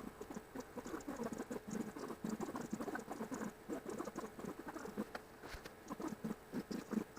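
Sped-up recording of a cat with her kittens: a fast, chattering run of tiny squeaks and patter.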